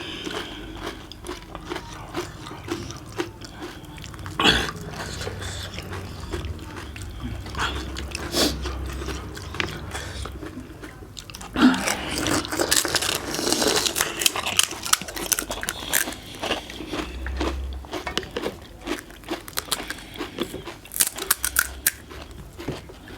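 Pani puri being eaten: crisp puri shells cracking as they are bitten, then chewed, in an irregular run of crunches with a few sharper cracks.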